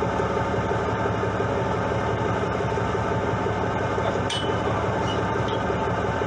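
Fishing boat's engine running steadily, a constant low drone. A single short click a little past four seconds in.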